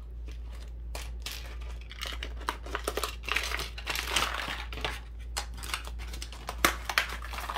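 A paper pouch crinkling and rustling in the hands as small tools and plastic bags are pushed back into it, with uneven crackles, busiest around the middle.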